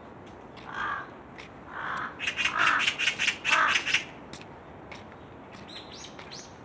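Crows cawing: a single harsh caw, another about two seconds in, then a quick run of loud caws. Faint higher chirps come near the end.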